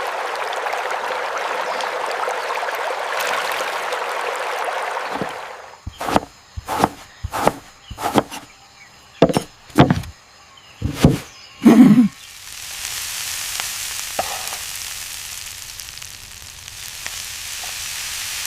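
Food sizzling in a frying pan, as when cooking an omelette. After about five seconds it gives way to a run of roughly ten sharp knocks and taps, then a softer, higher hiss.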